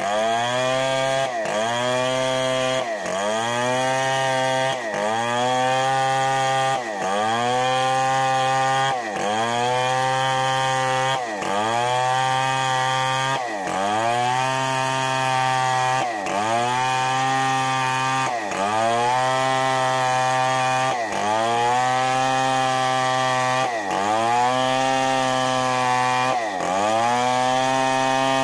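Stihl 070 two-stroke chainsaw ripping a log lengthwise under load, its engine note dipping briefly and recovering about every two seconds.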